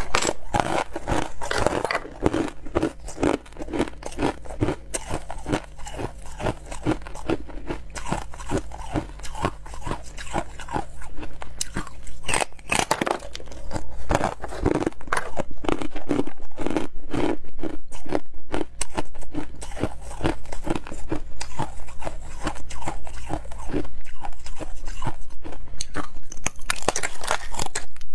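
Slabs of frosted ice being bitten and chewed up close: a rapid, continuous run of sharp crunches, denser and louder in the second half.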